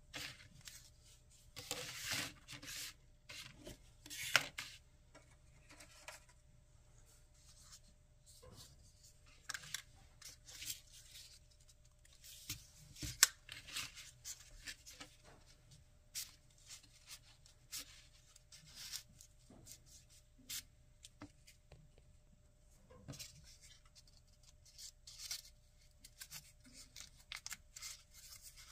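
Folded paper rustling and scraping in irregular bursts as 3D origami paper units are handled and slid across a tabletop, with a couple of sharper clicks.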